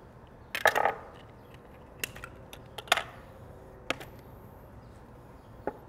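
A handful of short, sharp clicks and taps of a knife and a metal pineapple corer against a metal sheet pan as spiral-cut pineapple is sliced into rings. The loudest tap comes about three seconds in.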